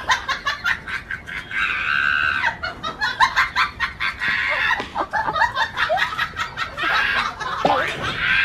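A rooster squawking and clucking as it scuffles with a dog, with people laughing.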